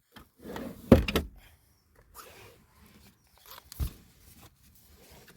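Interior plastic trim being handled and knocked into place: a cluster of sharp clunks and clicks about a second in, light rustling, and another single thump near four seconds.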